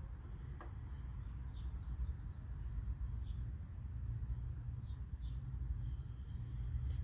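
Birds chirping, short scattered chirps with one briefly held note near the end, over a steady low rumble.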